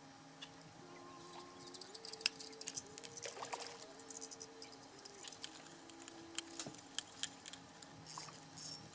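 Irregular light clicks and taps from a fishing rod and reel as a bluegill is hooked and reeled up out of the water.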